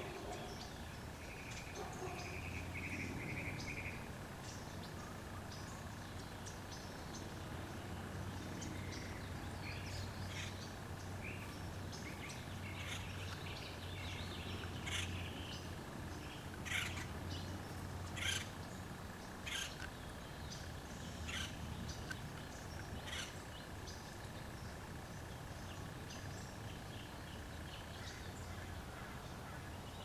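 Acorn woodpecker pecking a palm trunk: a handful of sharp taps a second or two apart in the middle stretch. Bird chirps come in during the first few seconds, over a steady low hum of background noise.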